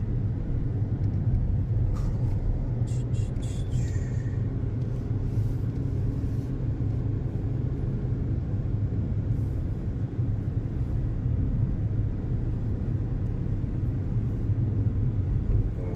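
Steady low rumble of a running vehicle or motor, with a few faint clicks about three to four seconds in.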